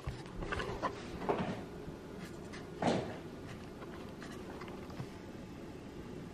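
A few light knocks and clunks from the camera being handled and moved, the loudest about three seconds in, then faint steady room noise.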